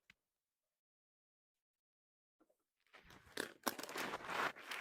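About three seconds of dead silence, then crinkly crackling and rustling of gift packaging being handled.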